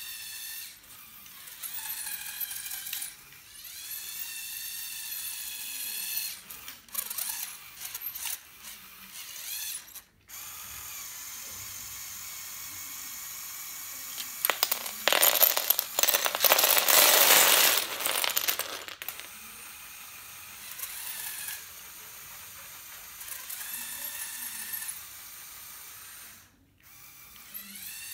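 Electric motors and plastic gears of a motorized Lego Technic truck whining, the pitch rising and falling as it drives. For about four seconds in the middle a much louder rattling grind comes in while the dump bed tips up.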